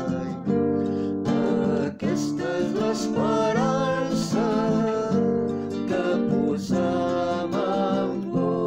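Acoustic guitar strumming chords to accompany a sung Catalan psalm, with a voice singing a slow line of the hymn through the middle.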